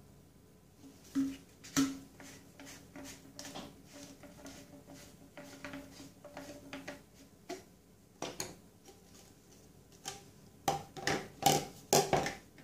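White plastic P-trap parts being handled: irregular hollow plastic clicks, clacks and rubbing as the flexible corrugated tube and J-bend are turned and pulled apart. Near the end comes a quick run of louder knocks as the pieces are set down on a stone countertop.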